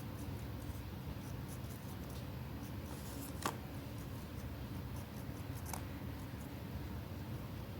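Light rustles and small ticks from paper pieces being handled, with a sharp click about three and a half seconds in and a softer one near six seconds, over a steady low hum.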